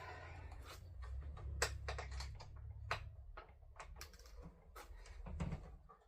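A string of light, irregular clicks and taps from small hardware and tools being handled, with no steady rhythm.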